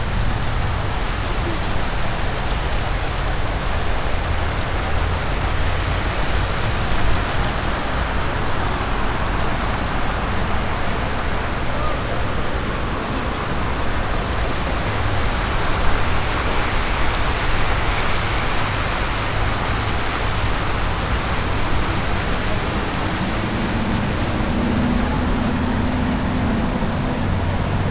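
A steady, even rushing noise that swells somewhat around the middle. A low hum comes in near the end.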